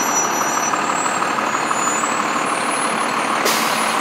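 Fire engine running as it rolls slowly past, a steady engine noise, with a brief hiss about three and a half seconds in.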